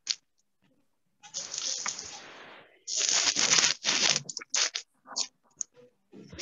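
Crackling, rustling noise coming through a video-call microphone, cutting in and out with dead silent gaps between, loudest for about a second near the middle.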